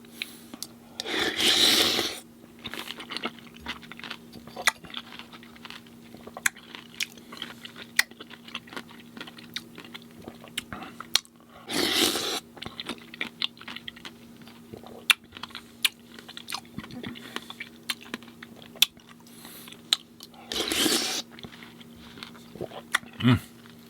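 Close-miked chewing of fresh fruit in coconut water: soft wet mouth clicks and crunches throughout. Three louder wet sounds, each about a second long, come near the start, in the middle and near the end.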